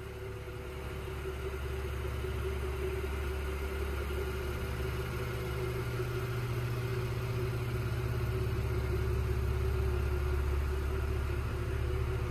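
A 2022 Lexus IS350's 3.5-litre V6 idling steadily, a low hum that grows gradually louder toward the rear of the car.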